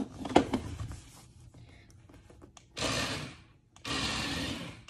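Small electric motor of a remote-control toy truck whirring in two short runs, about three seconds in and again near the end, as the truck drives across a hard floor. A few light taps come before it.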